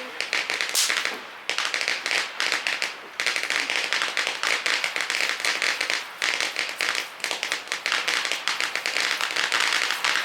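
A string of firecrackers going off in a rapid, continuous chain of sharp pops, with brief breaks about a second and a half, three seconds and six seconds in. It stops right at the end.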